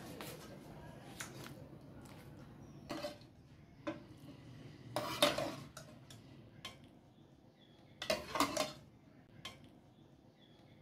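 Steel ladle scooping boiled chickpeas out of a metal pan and tipping them into a glass bowl: several separate clinks and scrapes of the ladle against the pan and bowl, a second or two apart.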